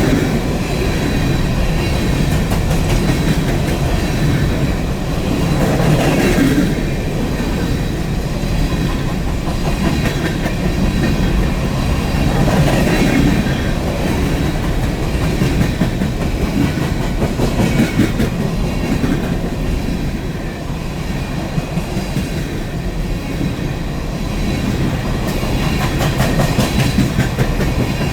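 Empty coal train rolling past at track side, a steady rumble of steel wheels with repeated clacking over the rail joints.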